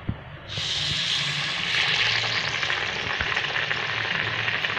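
A chana dal vada patty dropped into hot oil: the oil starts sizzling suddenly about half a second in and keeps up a steady deep-frying sizzle.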